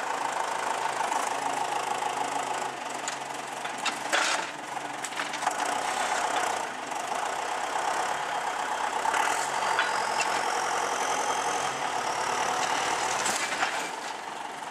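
John Deere 6210 tractor's diesel engine running steadily as its front loader tips a van back onto its wheels, with a few knocks and clunks from the van's body as it moves.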